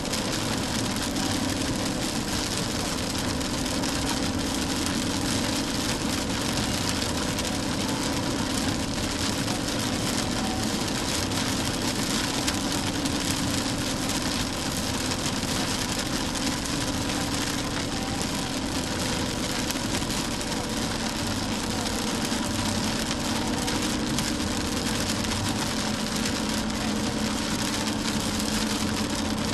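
Steady car noise heard from inside the cabin while driving in heavy rain: the engine's low drone under an even hiss of rain and wet tyres on the road.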